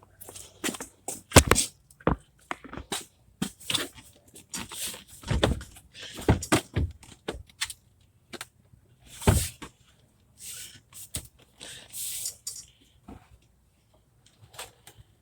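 A series of irregular knocks, clunks and clicks with brief rustling in between, the sound of objects being handled and set down; no engine is running.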